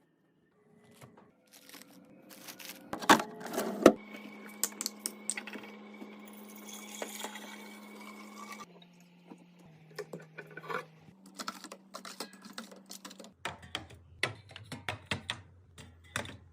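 Items being handled during a household restock: a run of clicks, taps and light knocks from containers and packaging, with two loud knocks about three and four seconds in.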